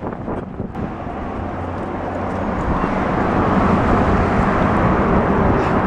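Road traffic noise: a steady rushing with a low engine hum, growing steadily louder as a vehicle approaches.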